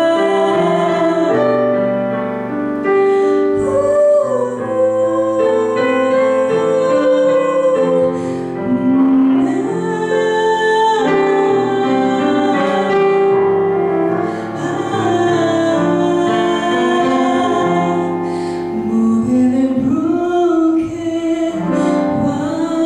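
A young woman singing a slow song into a microphone, accompanied by chords on a digital piano. Some held notes waver into vibrato.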